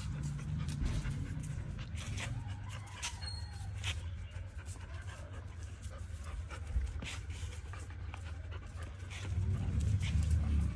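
German shepherd and Doberman puppies play-fighting: panting and scuffling, with short clicks of claws and paws on the tiles. It grows louder in the last second or so.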